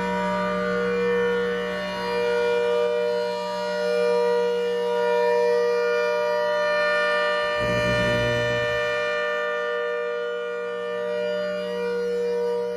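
Hurricane 130 warning siren sounding a steady chord of several tones, its loudness swelling and fading a little every couple of seconds. A brief low rumble comes about eight seconds in.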